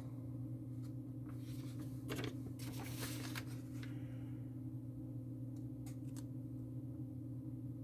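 Scattered soft rustles and clicks of a diamond painting canvas and its packaging being handled, over a steady low electrical hum.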